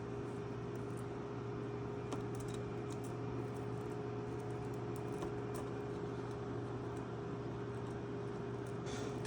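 Steady electrical hum with a few faint, scattered clicks of small plastic cable connectors being handled and pushed onto circuit-board pin headers.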